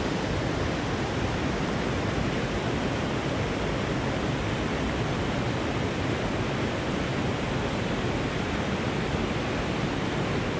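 Fast, shallow stream rushing steadily over rocks and riffles close to the microphone.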